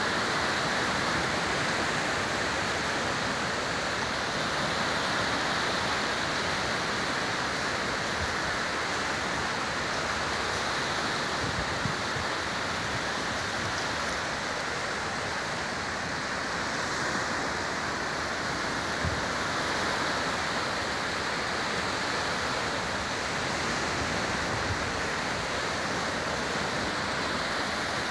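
Small sea waves washing up onto a sandy beach, a steady rush of surf.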